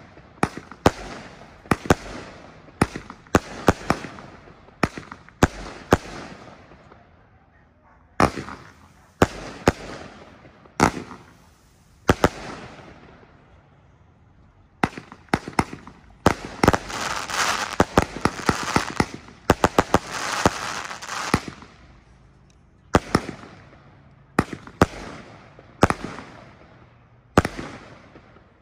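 Mad Fire Box firework cake firing shot after shot: sharp bangs about once a second, each trailing off. Midway a short lull, then several seconds of dense crackling before the bangs resume.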